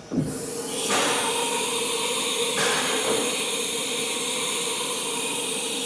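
Haas TM-2 CNC vertical milling machine working through its automatic tool-change cycle: a steady hiss with a low hum under it. It starts just after the beginning and cuts off near the end.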